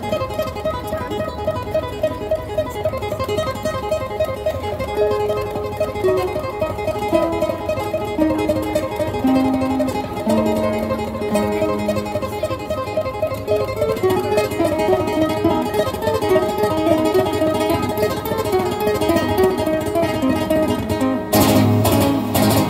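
Solo acoustic guitar played fingerstyle: a fast repeating picked figure over a bass line that steps downward. Near the end it breaks into a burst of hard, rapid strums across all the strings.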